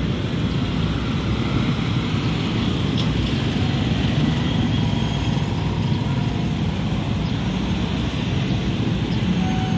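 Steady road traffic: motorcycles, cars and auto-rickshaws running and passing close by.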